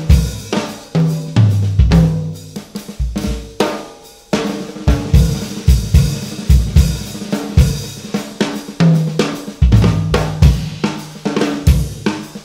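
Jazz drum kit played solo: snare, bass drum and tom hits with cymbals and hi-hat in loose, irregular rhythmic runs, with a short break about four seconds in before the hits resume.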